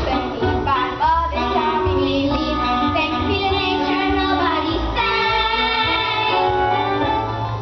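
Young voices singing a musical-theatre song over instrumental accompaniment with a pulsing bass, holding longer notes in the second half.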